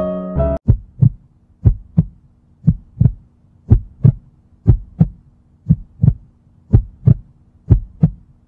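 Heartbeat sound effect: slow paired lub-dub thumps, about one pair a second, over a faint steady hum. The last notes of music cut off just before the first beat.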